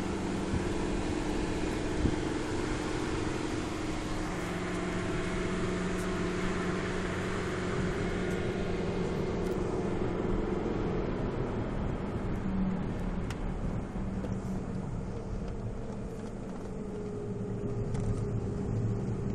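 Car heard from inside the cabin while driving: a steady low engine hum with tyre and road noise.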